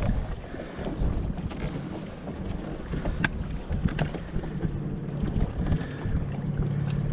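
A boat motor running with a steady low hum under wind noise on the microphone.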